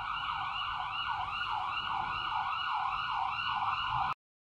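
Emergency-vehicle siren sound effect, wailing up and down in quick cycles about two to three times a second. It cuts off abruptly about four seconds in, leaving dead digital silence.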